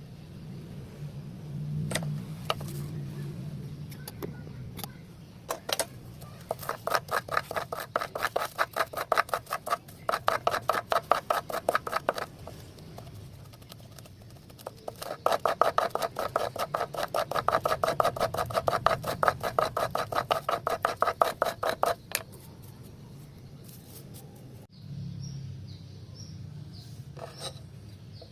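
A hand tool working wood in two long runs of fast, even back-and-forth strokes, about five a second, the second run louder and longer, with a few single knocks before and after.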